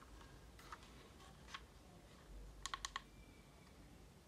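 Faint plastic clicks from handling a DJI Spark remote controller: a couple of single clicks, then a quick run of four about two and a half seconds in.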